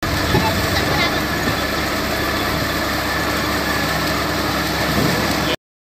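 Truck-mounted borewell drilling rig running steadily, with compressed air blasting water and rock cuttings out of the borehole around the drill pipe. The noise cuts off abruptly shortly before the end.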